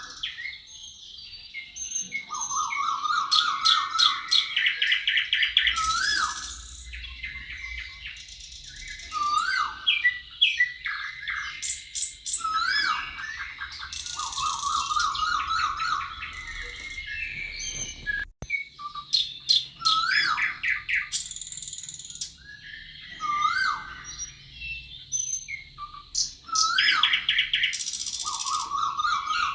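Several songbirds singing at once, with overlapping trills, chirps and upslurred whistled notes repeating every few seconds. A thin steady high tone runs underneath, and the sound drops out for an instant about eighteen seconds in.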